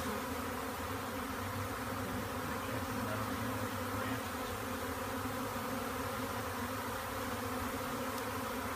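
A large swarm of honey bees buzzing close by, a steady, unbroken hum of many wings.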